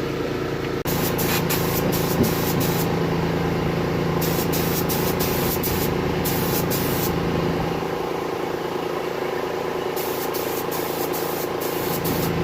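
Steady mechanical hum with a noisy rush, like a vehicle running close by, broken by short bursts of high hiss.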